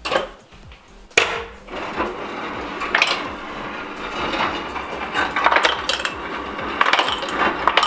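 Refrigerator door ice dispenser dropping ice cubes down its chute into a glass, a continuous clatter of knocking ice. A single sharp knock comes about a second in, before the rattle starts.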